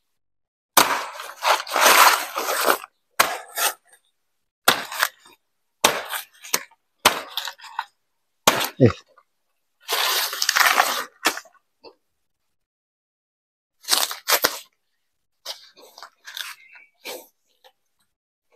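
Banana plant being cut down with a large knife: short chops and snaps mixed with rustling and tearing of banana leaves and stalks. There are two longer bursts of rustling and tearing, about a second in and about ten seconds in.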